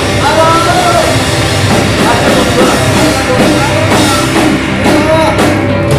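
A rock band playing loudly, with a drum kit and a bending melody line over the beat.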